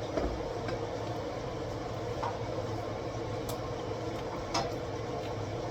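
Steady low mechanical hum of a kitchen appliance or fan, with a few light clicks of kitchenware being handled.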